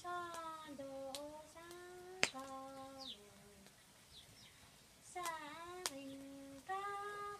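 A Hmong woman singing solo and unaccompanied in long held notes that slide between pitches, breaking off for about a second and a half in the middle before going on. Two sharp clicks and a few faint high chirps sound beneath the voice.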